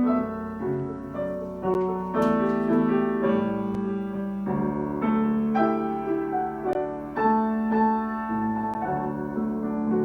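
Piano playing a slow instrumental piece of sustained chords, with new notes and chords struck every half second to a second.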